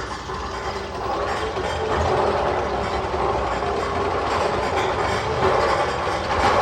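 Magnum XL 200 roller coaster train running on its steel track with a steady mechanical clatter and ratcheting clicks.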